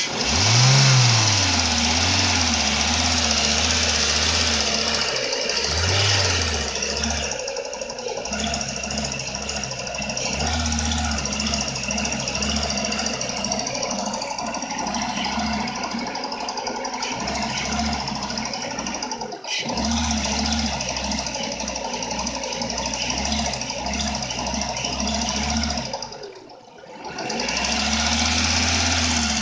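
Renault Mégane II engine running and briefly revved a few times, with a knock in the engine that the owner is asking about.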